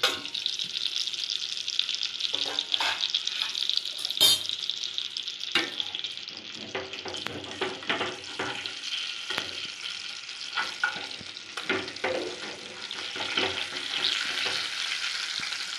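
Marinated chicken pieces sizzling in hot oil and butter in a kadai, with a steel spatula scraping and tapping against the pan as the pieces are turned. There is a sharp metal clank about four seconds in.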